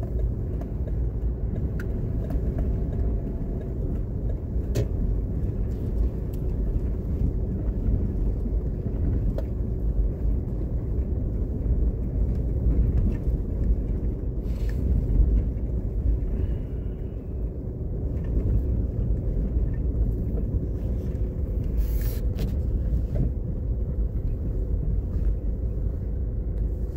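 Car driving along a road, heard from inside the car: a steady low rumble of engine and tyre noise.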